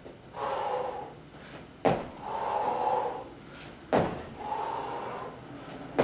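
Jump squats: feet landing on an exercise mat over a wooden floor three times, about two seconds apart, with loud, hard breaths between the landings.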